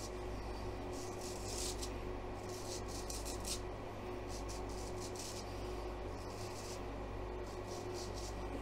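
Straight razor scraping through week-old stubble in a series of short strokes, over a steady low hum.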